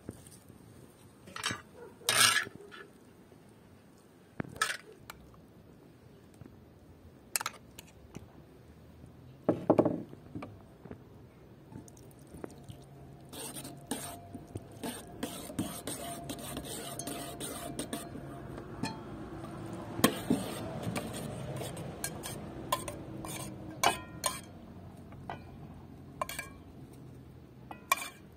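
A metal spoon clinks and scrapes against metal cookware with sharp, scattered knocks. Then water is poured from a metal mug into an enamel bowl and stirred into tomato paste with a spoon, in a steady pouring and stirring stretch of about ten seconds. Near the end come more spoon clinks against the bowl.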